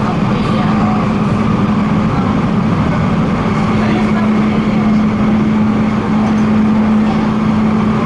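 Cabin noise of an MTR K-train running steadily at speed: an even rumble from the wheels on the rails, with a steady low hum.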